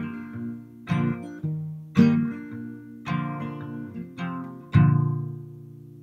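Acoustic guitar music: picked chords about one a second, ending on a last chord about five seconds in that rings out and fades.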